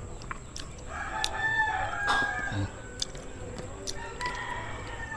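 A rooster crowing once, starting about a second in and lasting about a second and a half, with a few faint light clicks around it.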